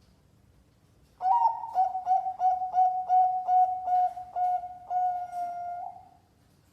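Zebra dove (perkutut) singing: starting about a second in, a fast run of short cooing notes, about four a second and slowing slightly, ending in one longer held coo. This is contest-class perkutut song, played to coax a silent perkutut into singing.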